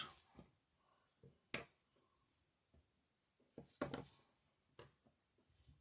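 Near silence broken by a few faint clicks and taps of small hand tools being handled: one sharp click about a second and a half in, and a short cluster of taps near four seconds.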